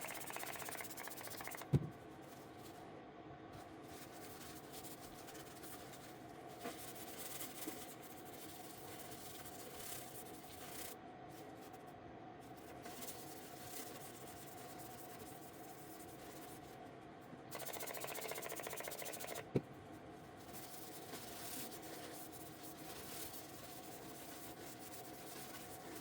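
Two short hissing spray bursts, one at the very start and one about two-thirds of the way through, each ending in a sharp click. Between them come faint rubbing and scraping sounds over a steady low hum.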